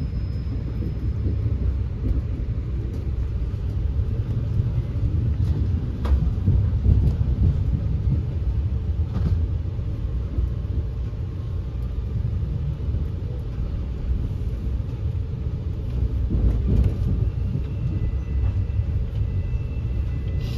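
Steady low rumble of a moving passenger train heard from inside the carriage, with a few faint knocks from the running gear.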